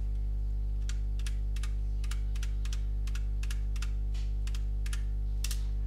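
Computer keyboard keys pressed one at a time, about a dozen presses at roughly two a second, over a steady low electrical hum.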